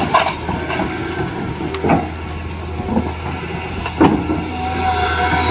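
Toy RC excavator's small electric motors and plastic gearboxes whirring steadily, with four separate knocks and clicks as the arm and bucket move.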